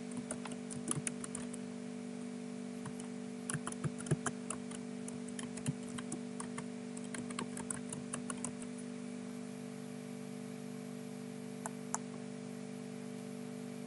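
Typing on a computer keyboard, with keys clicking irregularly for about eight seconds, then two single mouse clicks near the end, over a steady low hum.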